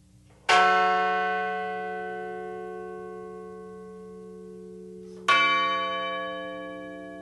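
A memorial bell tolled in remembrance after a victim's name is read. It is struck twice, about five seconds apart, and each strike rings on and slowly fades.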